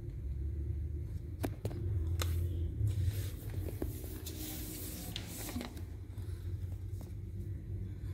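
Phone handling noise: soft rustling and a few light clicks as the phone brushes against cat fur and a cloth blanket, loudest in the middle, over a steady low rumble.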